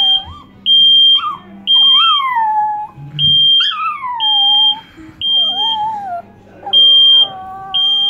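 Smoke detector sounding in repeated high-pitched beeps about half a second each, with a Chihuahua howling between and over them in long whining howls that mostly fall in pitch.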